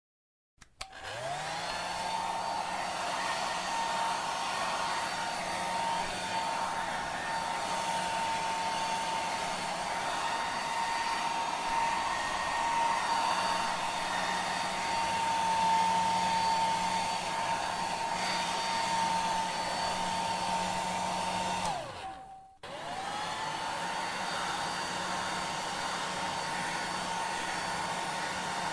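Hair dryer switched on: its motor whine rises to a steady pitch within about a second and runs over rushing air. About three-quarters of the way through it is switched off, the whine falling away, and straight back on, spinning up to the same steady pitch.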